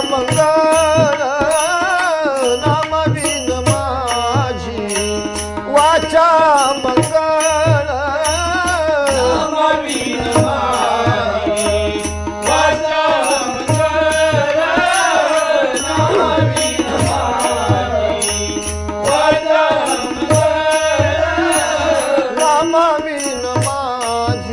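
Marathi devotional abhang being performed: a man singing a long, wavering melodic line over harmonium, with tabla strokes and small hand cymbals (taal) clinking a steady beat.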